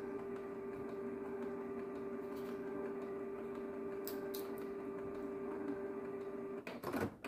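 Canon Pixma G3415 ink-tank printer running its deep-cleaning cycle: a steady motor hum that stops about six and a half seconds in, followed by a brief, louder mechanical noise.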